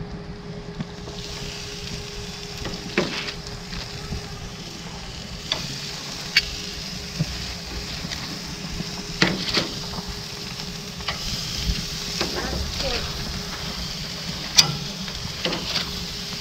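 Skewered meat sizzling on hot grill grates, the hiss building about a second in as it hits the metal. Sharp clicks of metal tongs and wire skewers striking the grates come every few seconds.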